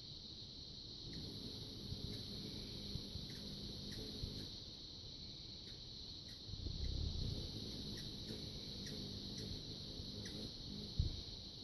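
Steady high-pitched insect chorus, with a low rumble that swells for a couple of seconds past the middle and a few faint scattered ticks.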